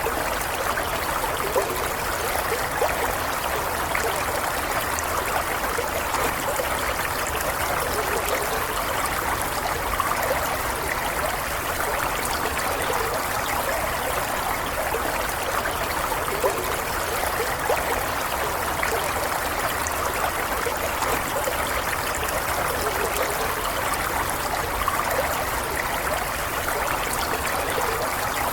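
Water of a stream flowing, a steady, unbroken gurgle with no pauses or changes.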